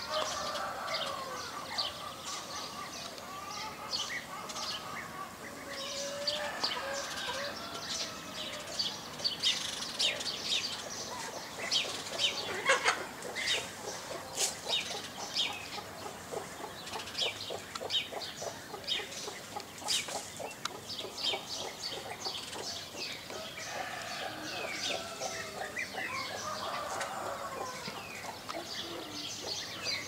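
A flock of European bee-eaters calling, with many short rolling chirps overlapping throughout.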